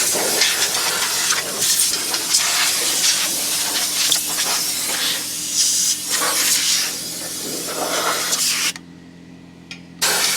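Compressed air blasting from a Radiator Genie air-gun wand, a loud rough hiss that swells and fades as it blows trapped debris out of a radiator. It cuts off about nine seconds in and starts again just before the end.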